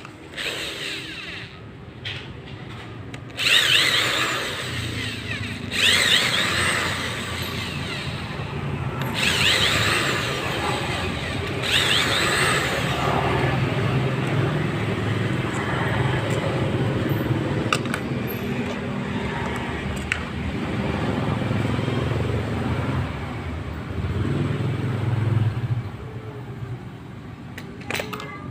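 Maktec MT90 angle grinder running with a rough, snoring sound, the sign of a burnt armature. It surges suddenly louder about four times in the first dozen seconds over a steady low hum.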